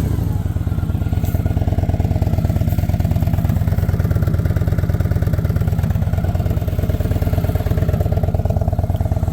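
2016 Victory Cross Country Tour's V-twin engine idling steadily through its stock exhaust, with an even low-pitched beat and no revving.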